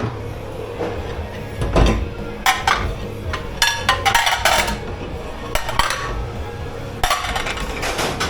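Dishes, pots and cutlery clattering and clinking in a commercial kitchen dish pit, in irregular bursts of knocks, over a steady low hum.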